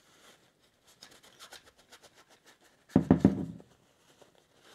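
Cloth rag rubbing and wiping the inside of a plastic laser-engraver module housing in a series of light scratchy strokes, with one loud low thump about three seconds in.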